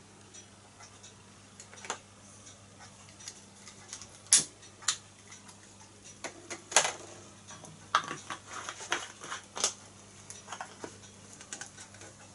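Irregular clicks and knocks of a small glass spirit burner and a lighter being handled and set down while the burner is lit under a model Stirling engine. There are two sharp clicks a little over 4 s and just before 5 s in, and a run of clicks and taps between about 7 and 10 s, over a steady low hum.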